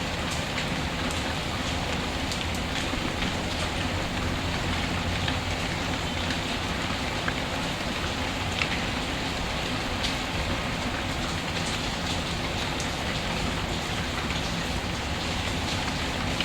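Steady rain falling, mixed with a wood fire crackling, with scattered small sharp pops.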